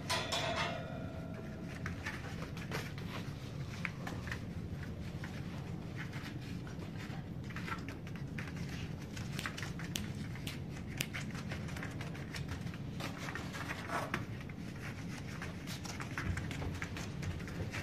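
Shiba Inu puppy's claws clicking and pattering on a wooden floor as it moves about, over a steady low hum. A short pitched squeak right at the start.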